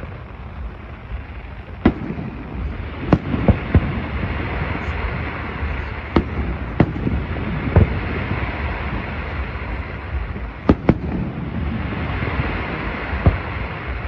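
Aerial fireworks going off, a string of sharp bangs at irregular intervals, some in quick pairs, over a steady rumble and crackle.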